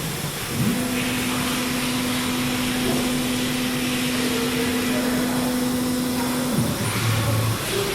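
TR408H ATC CNC router running: a steady whine that starts under a second in and cuts out with a short fall in pitch near the end, over a steady rushing noise.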